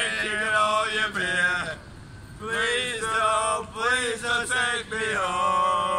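Two men singing and chanting loudly together in drawn-out phrases, breaking off briefly about two seconds in.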